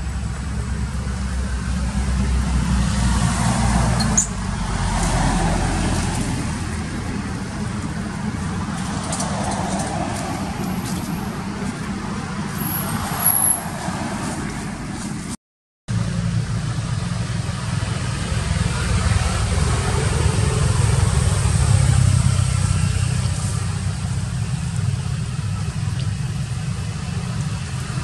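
Steady low hum of nearby road vehicles' engines running. The sound drops out completely for about half a second a little past the middle.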